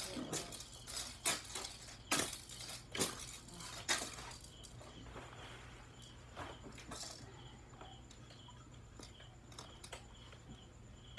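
Sharp wooden knocks and taps as small plywood pieces and a hand tool are handled on a tiled floor: about five loud knocks in the first four seconds, then fainter scattered taps.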